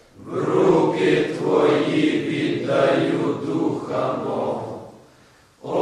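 Voices chanting in a choir, one long sung phrase that dies away near the end, with the next phrase starting just after.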